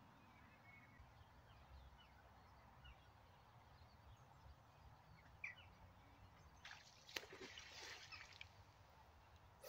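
Near silence with faint, scattered bird chirps, and a brief rustle about seven seconds in.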